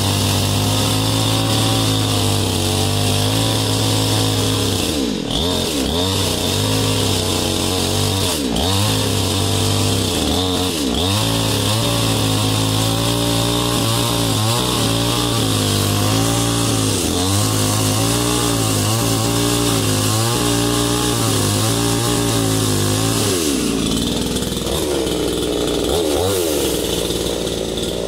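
STIHL-branded 20-inch two-stroke gas chainsaw running without cutting. Its engine speed dips and climbs back again and again as the throttle is worked, and the note changes a few seconds before the end.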